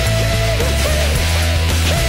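Rock instrumental passage: an electric guitar lead plays sustained notes with pitch bends and slides over a steady bass line and drums.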